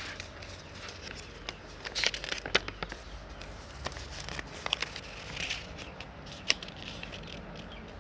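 Paper being handled and folded by hand, crinkling with irregular sharp crackles and creasing clicks; the loudest come about two seconds in, and there is a single sharp snap about six and a half seconds in.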